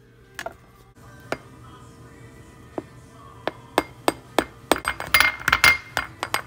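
Plastic shaker jar of ground cinnamon handled and shaken over a small glass bowl: a few sharp separate clicks and taps, then quicker, denser clicking and rattling in the second half as the jar is shaken.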